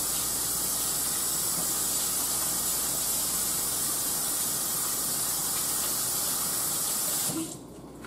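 Kitchen sink faucet running steadily while hands are washed under it. The water cuts off suddenly about seven seconds in.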